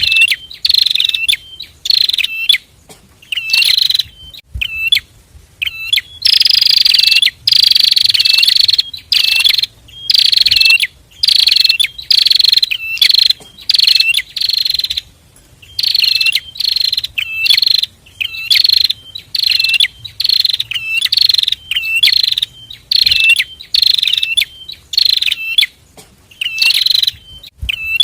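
A pair of prinias (prenjak) singing in a loud, steady string of repeated short notes, each falling slightly in pitch, with a second bird's short hooked notes between them.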